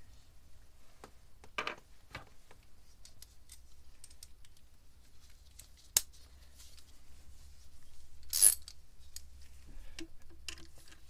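Hand tools being handled: a socket ratchet wrench picked up and fitted onto a nut. Scattered light clicks and clinks run through, with one sharp click about six seconds in and a short scraping rustle a couple of seconds later.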